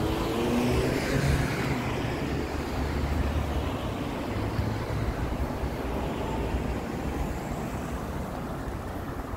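Road traffic going past: a vehicle's engine and tyres pass close by in the first few seconds, falling in pitch as it goes, over a steady traffic rumble.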